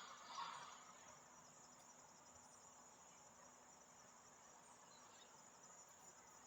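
Faint, steady, high-pitched trilling of insects such as crickets, with a brief soft sound about half a second in.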